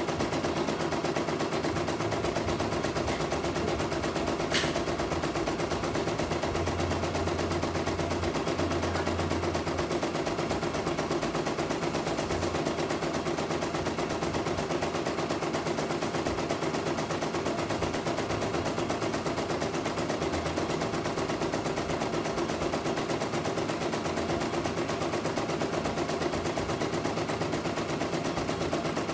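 CNY E900 computerized embroidery machine running and stitching a lettering design: a rapid, even tapping of the needle strokes at a steady pace. One sharp click about four and a half seconds in.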